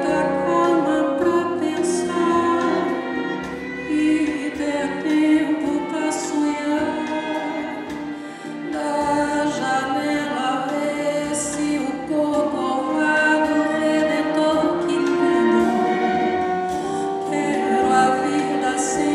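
A woman singing a slow song live with a string orchestra, her voice holding long notes over sustained strings.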